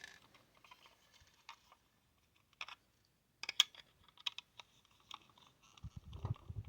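Sparse light clicks and taps of a small plastic doorbell housing being handled and taken apart, with a duller knock near the end.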